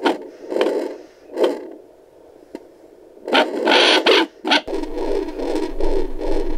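Fetal Doppler speaker: scraping, crackling bursts as the gelled probe slides over the pregnant belly. About two-thirds of the way through, this gives way to a steady rhythmic whooshing pulse, the baby's heartbeat picked up by the probe.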